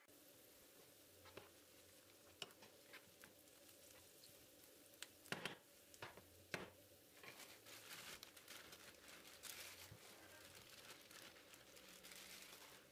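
Diced onions sizzling faintly in olive oil in a frying pan, with a wooden spoon scraping and knocking against the pan. There are scattered sharp clicks, a few louder ones about five to seven seconds in, and then a denser crackle.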